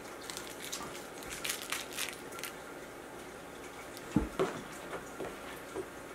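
West Highland White Terrier puppy rummaging at a plastic toy bin on a rug: light rustling and small clicks, then a sharp thump about four seconds in and a few lighter knocks as the bin is bumped and the toys shift.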